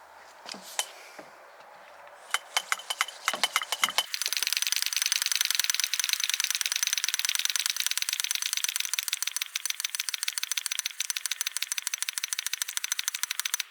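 Hand shock pump inflating a mountain bike's air fork: a few separate clicks as it is fitted, then about four seconds in a long run of rapid, even pump strokes as the pressure is brought up toward 100 psi.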